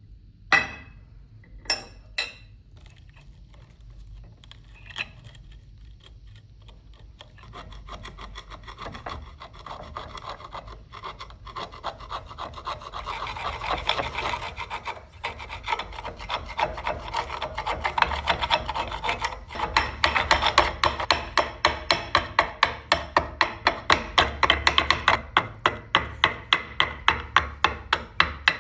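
A few sharp clicks, then a file rasping back and forth on the rusty steel of an old pocket knife. The strokes grow louder and settle into an even rhythm of about two to three strokes a second in the second half.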